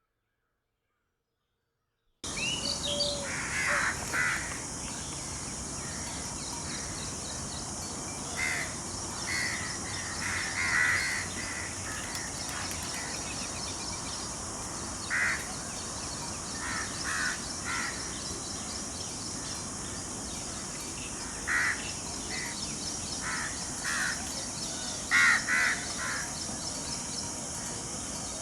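Crows cawing: short harsh calls, singly and in twos or threes at irregular intervals, over a steady high hiss. It starts about two seconds in.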